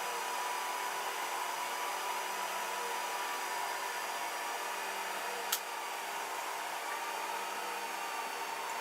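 Kossel delta 3D printer running a print: a steady whir with a constant hum in it, and a single sharp click about five and a half seconds in.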